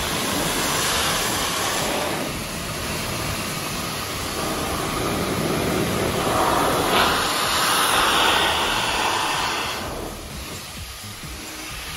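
Car-drying air blower running with a steady rushing hiss. It brightens about six or seven seconds in and drops away about ten seconds in.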